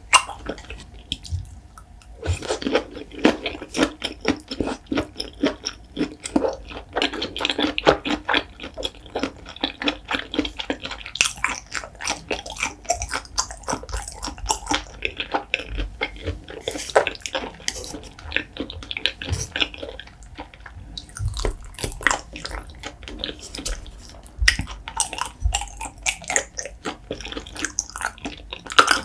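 Close-miked chewing of soy-marinated raw shrimp: dense, rapid, wet mouth clicks and squishes, with a short quieter pause in the first couple of seconds.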